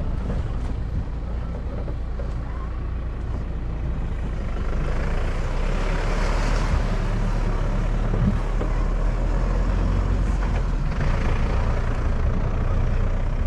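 A motor vehicle's engine running with a steady low rumble, swelling louder about halfway through and again briefly near the end.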